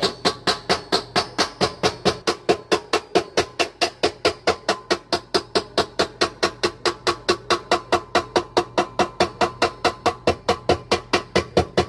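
Container of buffalo dressing glugging as it is poured out, an even run of about four or five glugs a second.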